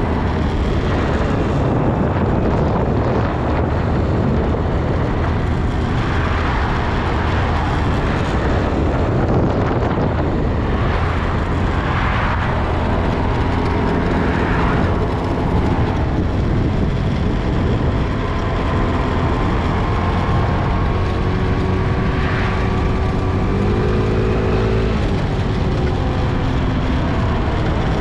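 Loud, steady mechanical drone of a large ventilation blower fan running constantly, with some shifting engine-like tones in the second half.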